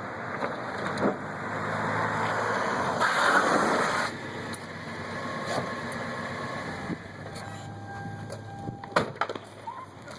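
A motor vehicle going past: engine hum under a rush of road noise that swells about three seconds in and then fades, followed by a few sharp clicks near the end.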